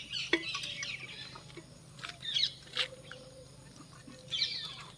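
Birds chirping in short, separate calls, about three times, with a couple of sharp clicks between them.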